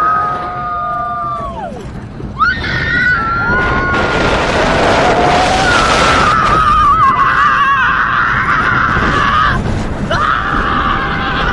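Roller coaster riders screaming: long, wavering screams that slide up and down in pitch, over a steady rush of noise from the moving ride.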